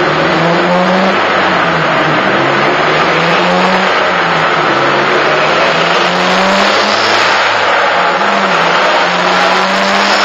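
Ford Focus RS mk1's turbocharged 2.0-litre four-cylinder, breathing through a decat manifold and full Milltek exhaust, running on a rolling-road dyno with its revs rising and falling repeatedly. A steady rushing noise runs underneath.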